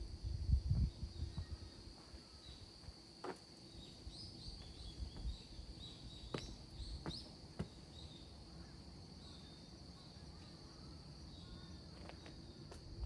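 Insects droning in one steady high-pitched note, with a few short bird chirps in the middle. Some low thuds near the start, likely footsteps on a path, and a few sharp clicks break in.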